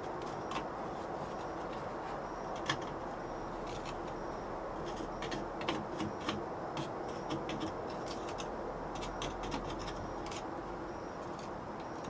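Light scattered clicks and scrapes as steel tongs work in a sand casting mould just filled with molten silver, over a steady background hiss.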